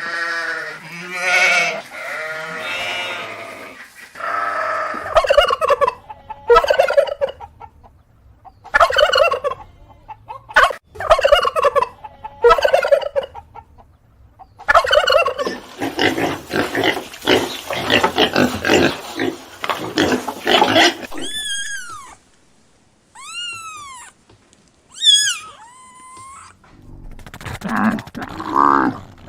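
Poultry calls in a row: turkeys gobbling in a fast rattling run about halfway through, between shorter repeated calls before it and several high, thin, arching chirps near the end.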